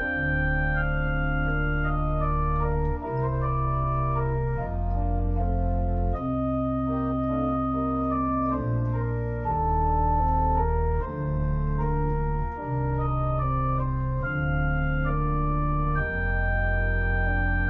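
Organ music: slow, sustained chords over held bass notes, the harmony changing every second or two.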